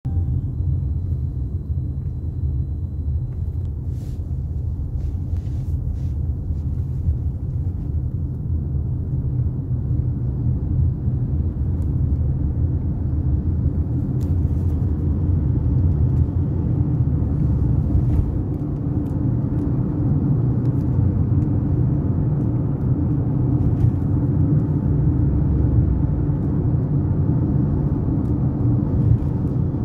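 Road noise inside a moving car's cabin: a steady low rumble of tyres and engine, with a few faint clicks.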